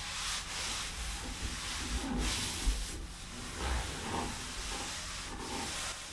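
Charcoal rubbing and scratching across paper in several long strokes, over a low rumble.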